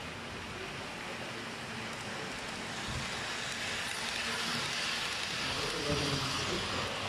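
Model trains running on a layout: a steady rolling hiss of wheels and motors on the track, growing louder from about three seconds in as trains pass close by.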